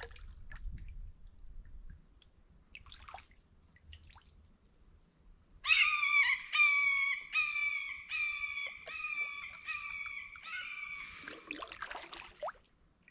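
A bird calls a loud string of about nine clear notes, each slightly falling, roughly two a second, starting about six seconds in. Drips and small splashes from the kayak paddle come before and after it.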